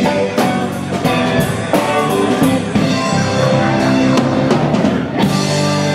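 Live rock band playing without vocals: electric guitar, electric bass and a drum kit, with a chord held out from about five seconds in.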